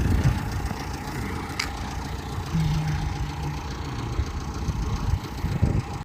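Car engine idling with a steady low rumble, cutting off abruptly at the end.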